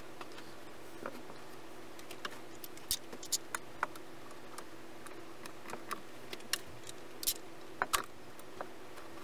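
Scattered light clicks and taps at an irregular pace over a steady hum; the sharpest come about three seconds in and again near eight seconds.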